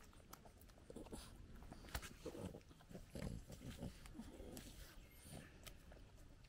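French bulldogs gnawing on a wooden stick: scattered crunching clicks of the wood between their teeth, with short low sounds from the dogs as they chew.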